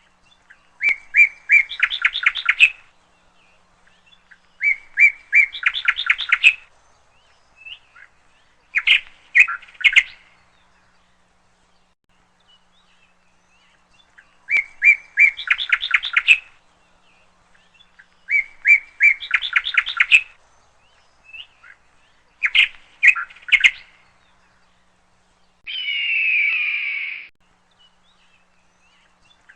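A bird singing the same short phrase over and over, about every four seconds: a few clear notes followed by a quick run of notes climbing in pitch. Near the end comes one different, longer call with a falling sweep.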